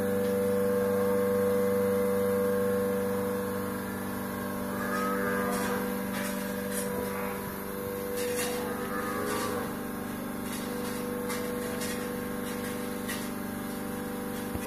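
A motor running steadily with a constant, even hum, with a few faint clicks scattered through the middle.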